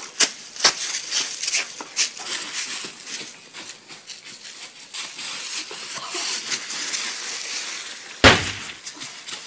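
Dry fallen leaves crunching and rustling under scuffling feet and bodies, a fast irregular crackle, with a single loud thump about eight seconds in.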